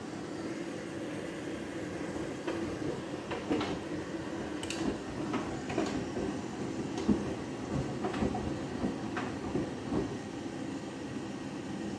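Front-loading washing machine tumbling its drum during a rinse, water sloshing around the laundry, with irregular clicks and knocks, the sharpest about seven seconds in.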